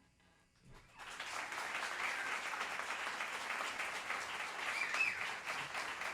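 Audience applause: clapping breaks out about a second in and continues steadily.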